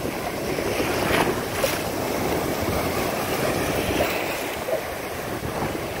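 Ocean surf: small waves breaking and whitewater washing through shallow water, a steady rushing.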